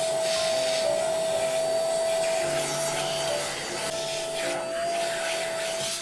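Keromee corded handheld vacuum cleaner running steadily, a high motor whine over rushing suction air, its crevice nozzle working along the edge of a shaggy rug.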